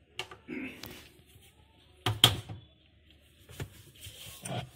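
Scattered clicks and knocks of a tool working at the plastic pulsator of a semi-automatic washing machine, loosening the screw that holds it; the sharpest knock comes about two seconds in.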